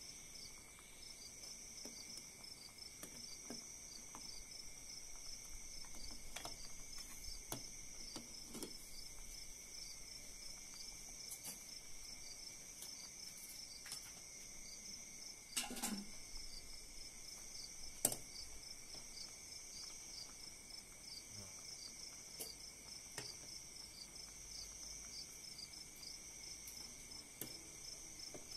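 Crickets chirping steadily, a fast even pulsing. A few light knocks and clinks come through it, two louder ones near the middle.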